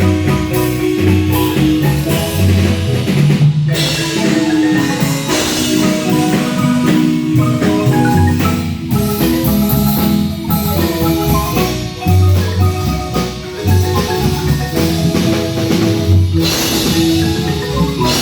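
Marimba band playing a tune: mallets striking the wooden bars in rolled, sustained notes over a line of low bass notes.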